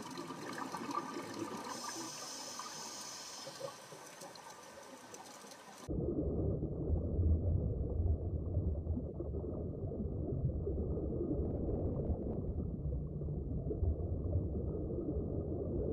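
Underwater recording of a scuba diver's exhaled bubbles from the regulator, hissing and bubbling. About six seconds in it cuts abruptly to a louder, muffled low rumble of water and bubbles heard underwater.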